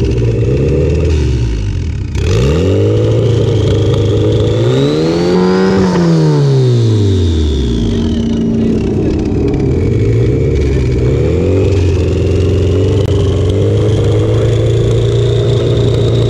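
Street-race car engines at the start line, idling with short throttle blips. One engine revs up to a peak about six seconds in and drops back, then settles into a steady idle. A high whine rises and falls above the engines.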